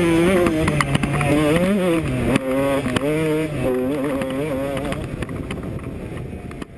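A 2004 Kawasaki KX125's single-cylinder two-stroke engine being ridden hard, its pitch rising and falling as the throttle is worked. Knocks of the bike over rough ground are mixed in. It fades out near the end.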